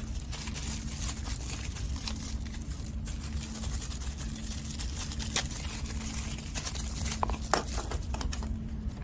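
Thin plastic toy bags crinkling and rustling as hands tear one open and handle small plastic toys. There are sharper crackles about five seconds in and again near seven and a half seconds, over a steady low hum.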